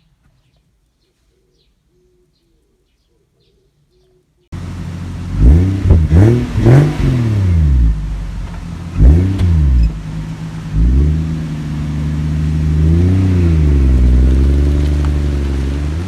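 Near silence, then about four and a half seconds in, the Toyota Crown Athlete V's 1JZ-GTE turbocharged straight-six is revved: several quick rev blips that rise and fall away, then it is held at a steady, slightly wavering engine speed.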